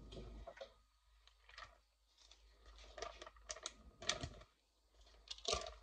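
Faint scattered clicks and taps of a serving spoon scraping a pan and knocking against a plastic zip-top freezer bag as a rice mixture is spooned in, with several quick taps in a row about three seconds in and again near the end.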